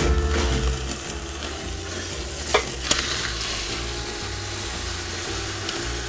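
Bone-in beef chuck roast sizzling steadily as it sears in a stainless steel stockpot, browning it for flavour, with two sharp metal clicks of the utensil against the pot about two and a half seconds in. A faint music bed plays underneath.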